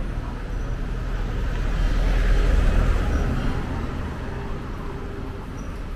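A van driving past close by on the street, its engine and tyre noise swelling to a peak about two and a half seconds in, then fading, over steady town traffic.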